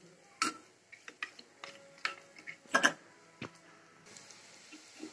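A few light, scattered clicks and taps of kitchen utensils, with a brief faint ring.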